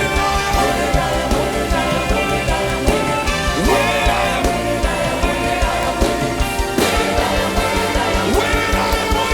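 Music with a steady, fast drum beat under layered pitched instruments.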